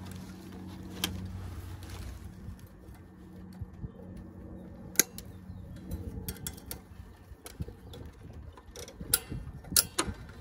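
Scattered sharp clicks and taps of hands and tools working on an air-conditioning condenser's wiring plugs and capacitor, over a low steady hum.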